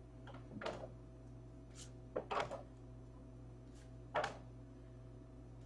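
Faint handling of trading cards in the hands: a handful of soft clicks and rustles over a steady low hum.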